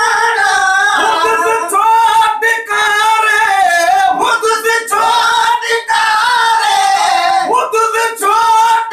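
Men's voices singing unaccompanied in long, held, gliding melodic phrases; partway through, one voice carries the line alone.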